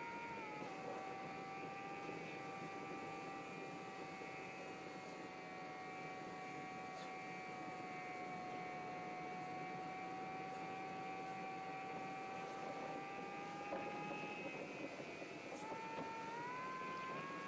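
A car driving at motorway speed, heard faintly from inside the cabin: a steady road rumble under a whine whose pitch drops about half a second in and climbs again near the end.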